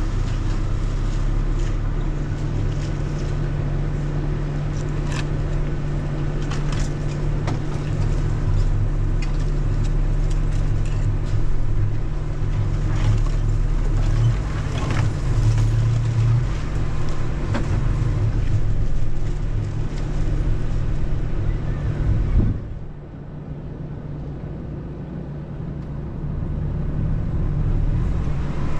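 Vehicle driving slowly along a rough dirt trail: a steady low rumble of the running vehicle, with scattered clicks and knocks. About three-quarters of the way through, the sound drops suddenly to a quieter rumble, then rises again near the end.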